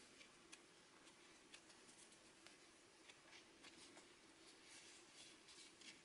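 Faint fingertip and fingernail scratching and light tapping on the cover of a small paper booklet, a scatter of short, soft scratches and clicks.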